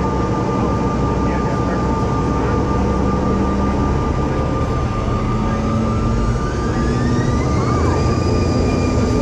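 Bombardier CRJ-700's rear-mounted GE CF34 turbofan engines heard from inside the cabin, running at taxi power with a steady whine over a low rumble. About six seconds in, a rising whine climbs and levels off as the engines spool up.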